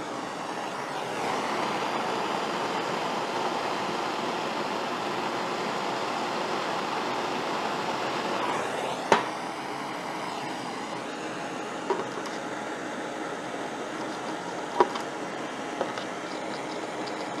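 Handheld gas torch hissing steadily while it heats a drill bit. The hiss stops about nine seconds in with a sharp knock, and a few lighter clicks follow. A fan hums steadily underneath.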